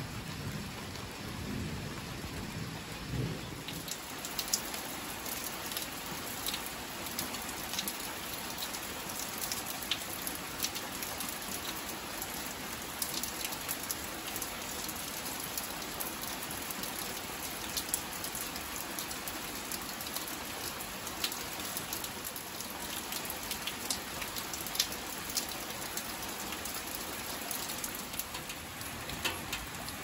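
Steady rain falling, with many close drops tapping sharply on surfaces. A low roll of thunder dies away during the first three or four seconds.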